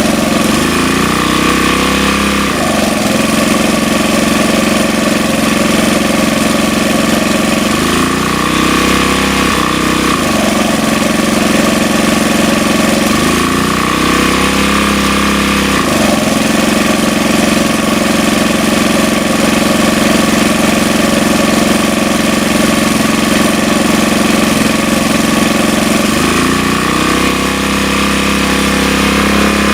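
Sportsman GEN2000 generator's small single-cylinder four-stroke engine running steadily, its pitch sagging and recovering every several seconds as the speed hunts. The owner says the unsteady output makes the light it powers dim.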